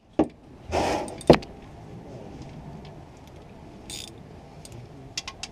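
Metal hand tools clinking and scraping as a wrench and a ratchet with socket are handled against the underside of a car: a click, a short scrape, then one sharp metallic clink about a second in, and a few light ticks near the end.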